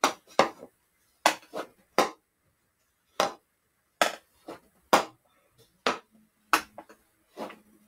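Hockey stick blade striking a ball in a passing drill: an irregular series of about a dozen sharp clacks, some in quick pairs, as the ball is passed, caught and pulled across on forehand and backhand.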